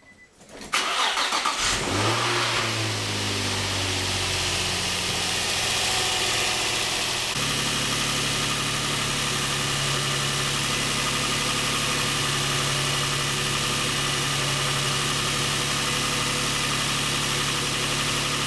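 Infiniti G35 Coupe's VQ35DE V6 starting up about a second in, its revs flaring and then sinking over the next few seconds. From about seven seconds in it is held at a steady raised speed to warm up and push air bubbles out of the freshly refilled cooling system.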